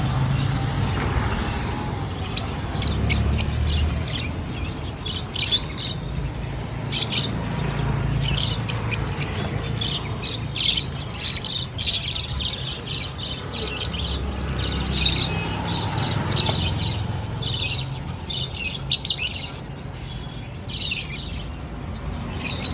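Pet-shop cage birds chirping and squawking, many short high calls coming thick and fast, over a low steady rumble.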